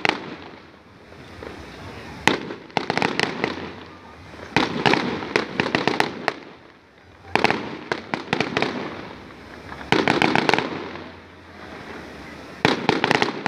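Fireworks display: aerial shells bursting overhead, with quick runs of bangs and crackling in about five groups, one every two to three seconds.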